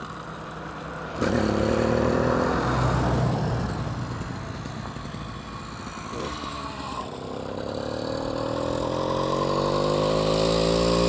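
Small two-stroke motorized-bicycle engine catching suddenly about a second in and running. Its pitch then climbs steadily over the last few seconds as it speeds up.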